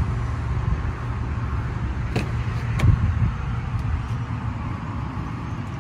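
Driver's door of a Range Rover Velar being opened: two sharp clicks, a little over two and nearly three seconds in, over a steady low rumble.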